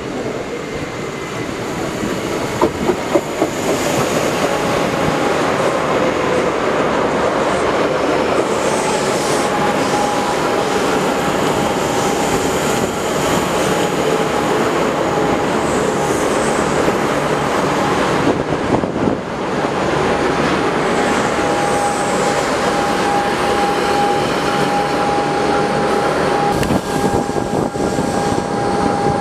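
Melbourne Metro Comeng electric multiple-unit train running along the platform: wheels clattering over the track, a few short high wheel squeals, and a steady whine from about halfway through.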